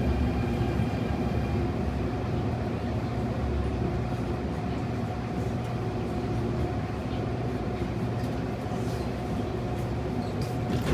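Interior sound of an Adtranz-CAF metro train running on the line: a steady rumble of wheels on rail with steady whining tones from its AEG GTO-VVVF traction inverter and motors. The highest tone fades out in the first half second.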